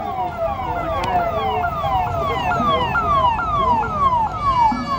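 Police vehicle siren repeatedly sweeping down in pitch and jumping back up, about two to three times a second. A steady pitched tone joins it near the end.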